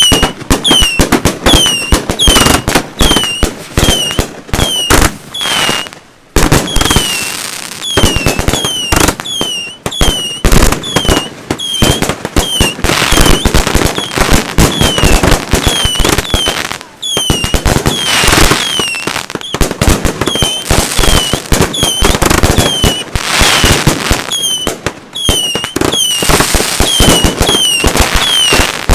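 Consumer fireworks cakes firing continuously: rapid loud bangs and pops, short falling whistles about twice a second, and stretches of crackling.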